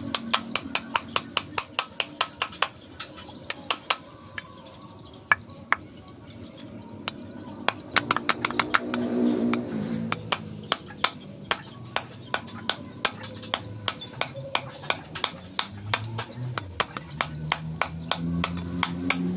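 Steel cleaver blade chopping at the end of a wooden handle against a wooden chopping stump: a fast, steady series of sharp chops, several a second, trimming and rounding the handle's end.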